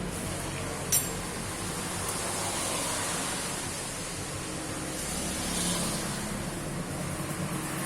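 Steady mechanical hum and hiss, with one sharp click about a second in.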